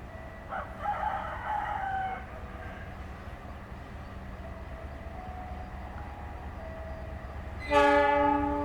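A rooster crows early on over a low steady rumble. Near the end a train horn blasts suddenly and loudly, one steady held note.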